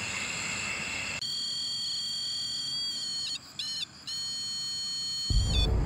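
REM-Pod style EMF detector sounding its alarm: steady high electronic tones that jump and warble in pitch with short breaks, the signal that something has disturbed the field around its antenna. From about five seconds in, a low noise sounds under it.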